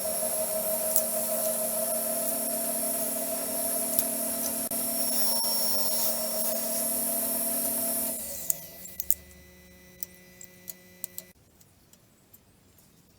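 Electric power tool running steadily with a motor whine, switched off about eight seconds in and dying away over the next few seconds, with several sharp clicks as it stops.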